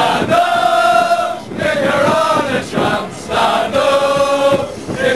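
A crowd of mostly male football supporters singing a chant together, inside a crowded tram car. The chant comes in three long phrases of held notes, separated by short breaks.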